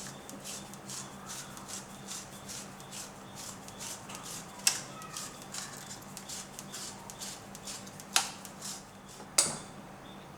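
Hands-on kitchen food prep: a run of soft, quick strokes, about two or three a second, broken by three sharp clicks or knocks, one about halfway and two near the end.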